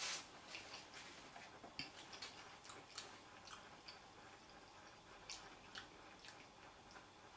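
A bite into a slice of pizza, then faint chewing with small, irregularly spaced mouth clicks.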